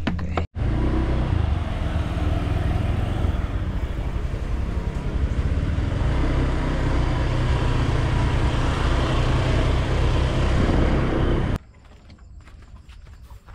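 Motorbike engine running steadily while riding, a loud rumble that stops abruptly near the end.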